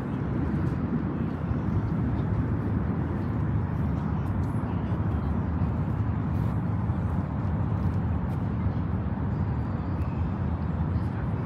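Steady low rumble of city traffic noise, with a few faint ticks above it.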